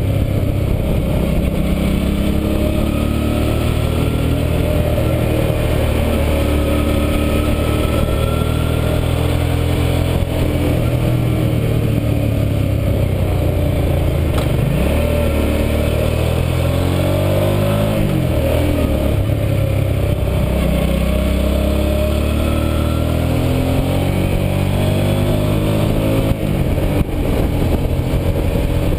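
Hyosung Aquila GV650i's V-twin engine pulling the bike along a winding road, its pitch falling and rising with the throttle as it takes the bends, dipping and climbing again about halfway through.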